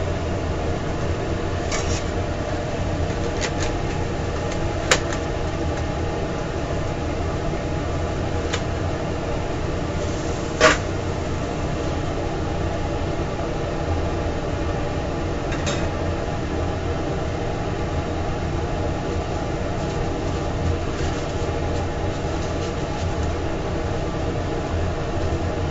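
Steady mechanical hum of food-trailer kitchen machinery with a low drone, and a sharp click or knock about five seconds in and again near eleven seconds.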